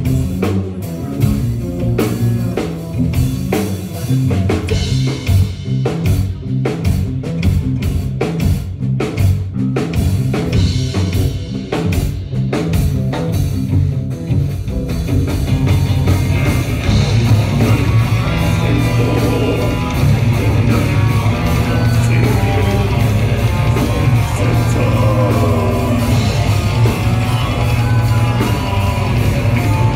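Live rock band with electric guitars and drum kit playing: stop-start riffs and hits with short breaks, moving about halfway through into a steady, denser full-band section.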